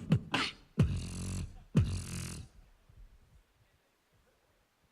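A beatboxer testing the microphone: a quick run of sharp kick-drum-like hits, then two longer bass-heavy sounds with hiss on top, each under a second, and then a pause.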